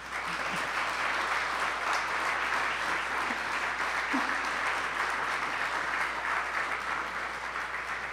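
Audience applauding steadily, dying down near the end.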